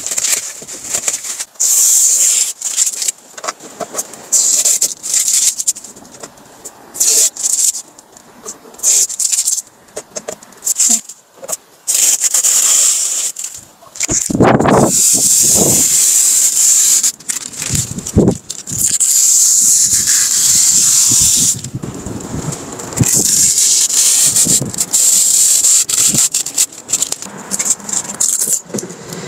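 Protective plastic film being peeled and crumpled off a new car's interior trim, in loud, irregular rustling bursts, with longer unbroken stretches of crinkling in the middle.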